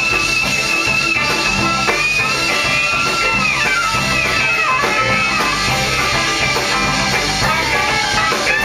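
Live jazz band playing a waltz: a horn carries the melody, sliding between notes, over guitar, bass and drums.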